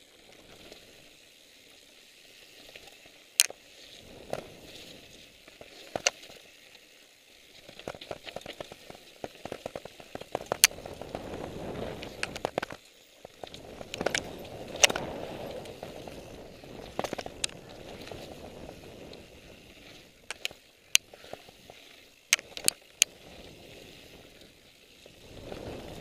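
Mountain bike rolling fast down a loose rocky gravel trail: knobby tyres crunching over stones, with many sharp knocks and rattles as the bike hits rocks and bumps.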